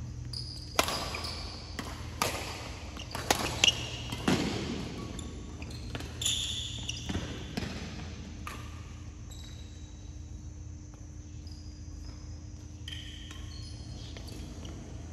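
Badminton rally in a sports hall: sharp racket strikes on the shuttlecock, one every second or so, with short squeaks of shoes on the court floor. The hits stop about halfway through, leaving a steady low hum of the hall.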